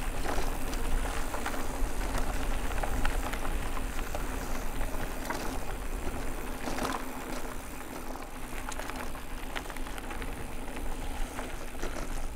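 An e-mountain bike rolling over a rough forest trail: tyres crunching on dirt and twigs, with frequent small clicks and rattles from the bike over a steady low rumble.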